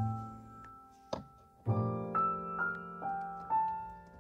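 Slow background piano music: single notes struck one after another and left to ring.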